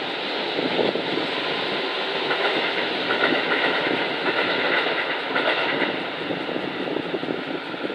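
Sanyo Electric Railway commuter train pulling away from the station, with wheels clacking over the rail joints and a whine from about two to six seconds in. The sound fades toward the end as the train draws off.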